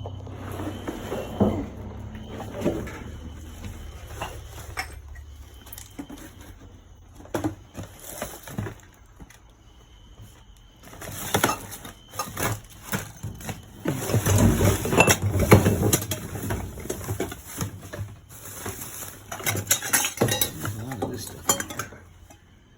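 Metal household odds and ends, such as pots, pans and brass pieces, clattering and clinking as they are rummaged through and shifted in a dumpster. The knocks come in irregular flurries, busiest in two spells in the second half.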